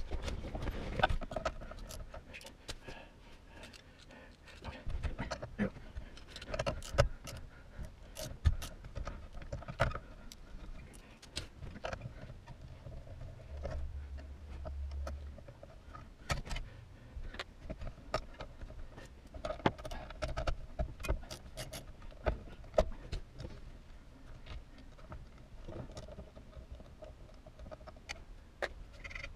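Irregular clicks, knocks and small rattles of hands and tools working on a 1974 Plymouth Valiant's steering wheel hub and steering column.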